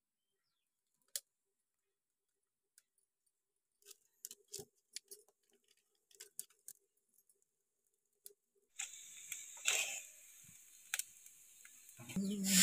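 Dry twigs and sticks clicking and snapping as they are pushed into a small wood-burning stove and lit with a burning leaf. From about nine seconds a steady hiss sets in as the fire takes hold, with a louder sound near the end.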